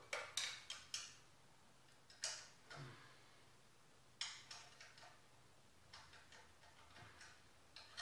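Faint, irregular clicks and light metallic taps in small clusters: hand tools being worked on a mini bike's engine and chain fittings.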